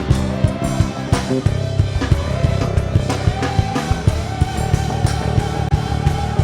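Live band playing an upbeat gospel praise groove: drum kit with a steady beat, bass and a sustained keyboard or organ line, with no lead vocal.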